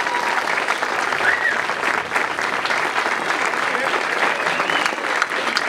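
Crowd applauding: steady clapping from many hands.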